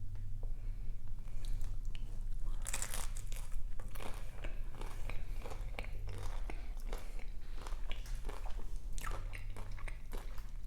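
Close-up mouth sounds of biting and chewing crispy fried chicken, with a run of crunches, the densest about three seconds in.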